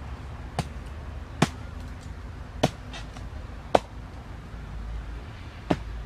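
Small hatchet chopping into a wooden branch: five sharp blows, one to two seconds apart, the first one lighter.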